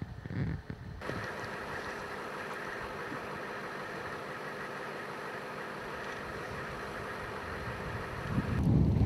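Military Humvee's diesel engine idling steadily. Near the end a louder rush of wind on the microphone takes over.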